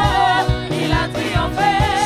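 Live gospel praise song: a female lead singer and choir singing into microphones over a keyboard and a steady beat.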